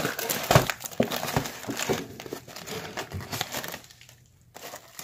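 Cardboard box and packaging being handled, crinkling and rustling, with scattered sharp knocks and scrapes. The handling stops briefly near the end, then starts again.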